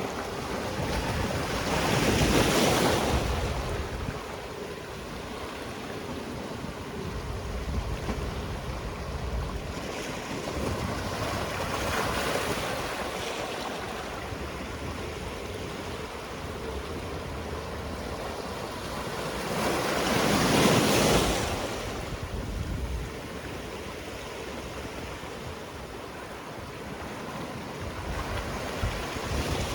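Sea waves washing onto the shore, with two larger breakers surging about two seconds in and again about two-thirds of the way through, and softer swells in between.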